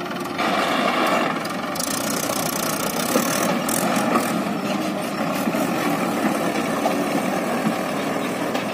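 Mahindra 575 DI tractor's four-cylinder diesel engine running under load as it pulls a fully loaded trolley of soil away. It gets louder about half a second in and then holds steady.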